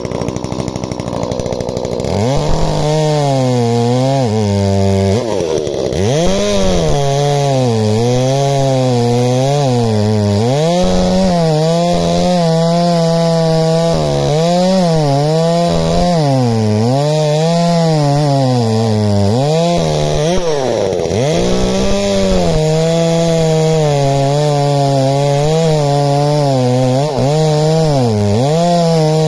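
ECHO petrol chainsaw cutting through thick sea buckthorn roots. Engine pitch repeatedly sags as the chain bites into the wood and climbs back as it frees, over and over, from about two seconds in.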